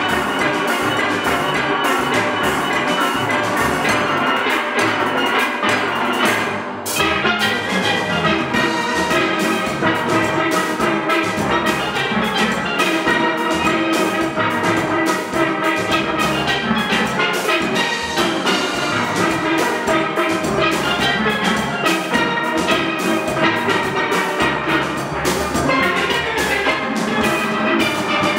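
Steel pan ensemble playing together, many pans of different ranges striking quick melodic and chordal notes over a drum kit keeping the beat.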